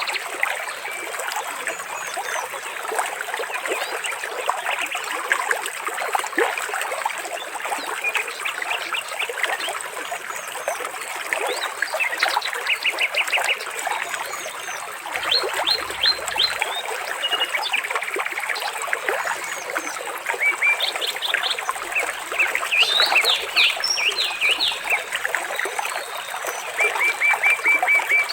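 Water trickling steadily, with birds chirping over it in short, quick runs of high notes, several times.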